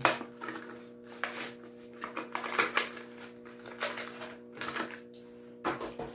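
Irregular light clicks and clatters of small hard objects being handled, over a faint steady hum.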